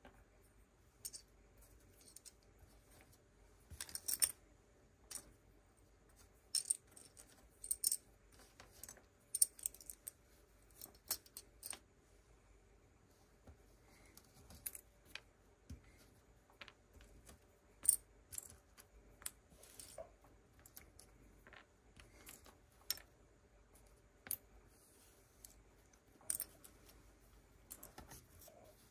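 Lego pieces being handled and snapped together: irregular small plastic clicks and rattles, a few at a time, with short quiet gaps between.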